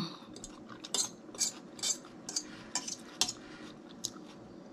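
Small metal fork scraping and clinking in an escargot dish, scooping up leftover garlic butter and cheese. A run of short scrapes comes roughly two a second, starting about a second in, with a last one near the end.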